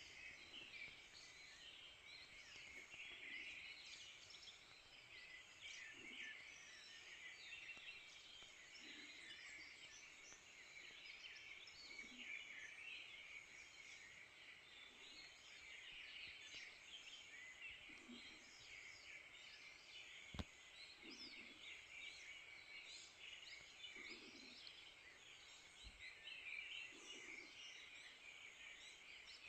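Faint dawn chorus in a forest: many birds chirping and trilling at once. A short low call repeats about every three seconds, and there is a single sharp click about two-thirds of the way through.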